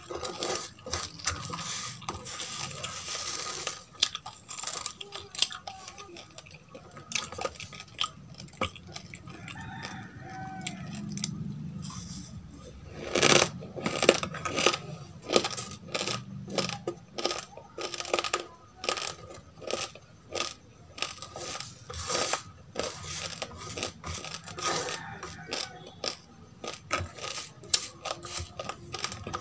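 Close-miked crunching of dry roasted rice grains being chewed: a dense run of sharp little cracks, heaviest about halfway through, mixed with fingers scraping and pinching loose grains from a plate.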